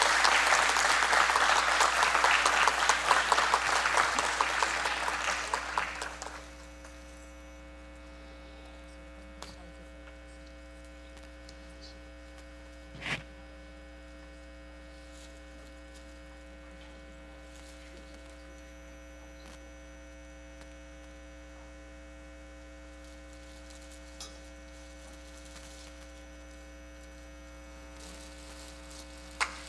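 Audience applause that fades out over the first six seconds, leaving a steady electrical hum with a single sharp knock about halfway through; applause starts again at the very end.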